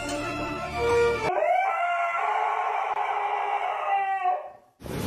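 A husky howling in one long, wavering call of about three seconds, rising at the start. Background music plays for about the first second, before the howl begins.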